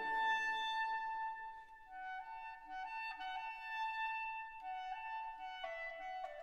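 Background instrumental music: a slow melody of long held notes that step up and down, with no firework bangs heard.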